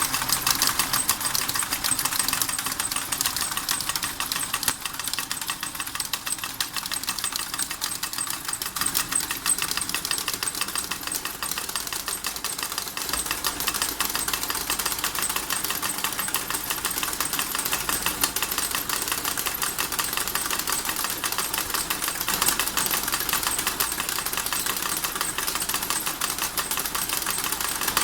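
Model steam engine running with a rapid, steady mechanical clatter of many quick knocks.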